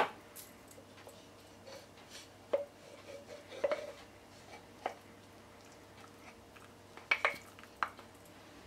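Soft roasted peppers being slid off a wooden spatula into a small glass jar: faint wet squishes and light taps of the spatula and fork against the glass, with a couple of sharper clicks near the end.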